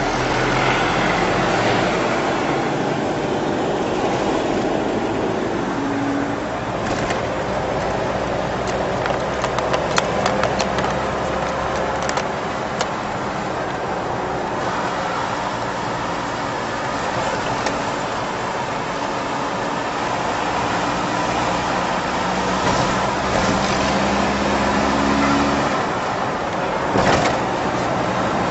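Vehicle engine and road noise heard from inside the cab while driving along a highway, the engine's pitch shifting several times as speed changes. Another bus passes close alongside at the start, and a few brief clicks or rattles come about ten seconds in.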